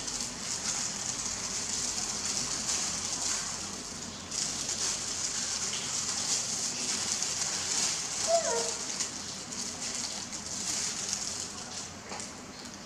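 Continuous crackling rustle of disposable plastic gloves as hands dip and handle rice-paper wrappers in a bowl of water. A brief falling squeak cuts in about eight seconds in.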